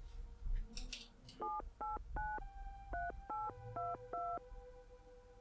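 Mobile phone keypad tones as a number is dialed: seven short beeps, each a two-note tone, over about three seconds, starting about a second and a half in.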